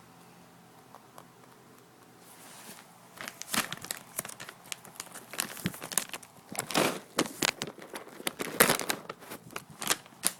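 Rabbit chewing a dry alfalfa hay ring: irregular sharp crunching and crackling close to the microphone, starting about three seconds in.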